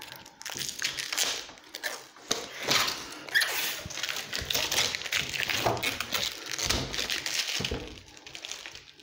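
Protective plastic film being peeled off a new monitor's casing, crackling and rustling irregularly as it is pulled and handled, dying down near the end.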